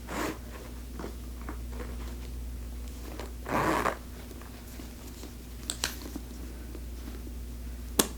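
Quiet handling of a quilted nappa leather handbag over a low steady hum, with one short rasp about three and a half seconds in and a few light clicks.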